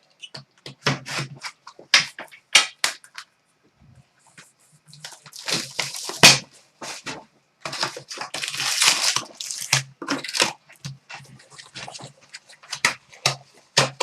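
A sealed box of trading cards being opened and its foil packs torn open. Wrappers crinkle and rip amid scattered clicks and rustles, with louder tearing about five and eight seconds in.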